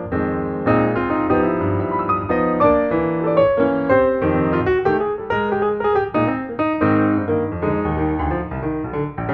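Background piano music: a steady run of quick notes and chords.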